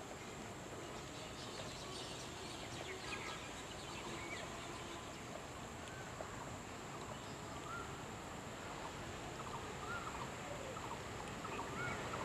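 Rural outdoor ambience: birds calling with short chirps over a steady background hiss and a thin, steady high-pitched tone; the overall level grows slightly louder near the end.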